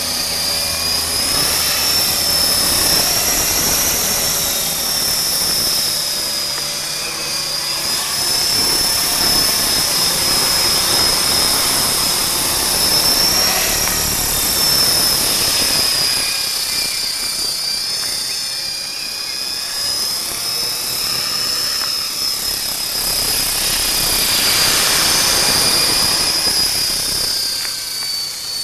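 Align T-REX 450 electric RC helicopter, fitted with a five-blade main rotor and a four-blade tail rotor, flying: rotor noise under a steady high-pitched whine that wavers slightly in pitch, swelling and easing in loudness as it moves about.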